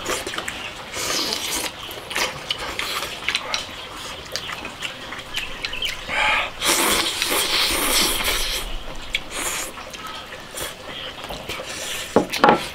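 Mukbang eating sounds: people slurping and chewing rice and soupy stew from bowls held to the mouth, with chopsticks clicking against the bowls. The densest, loudest slurping comes about halfway through.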